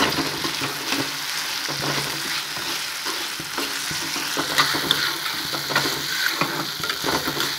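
Peas and chopped tomatoes sizzling in hot oil in a kadhai while a metal spatula stirs and scrapes them, with frequent short clicks of the spatula against the pan.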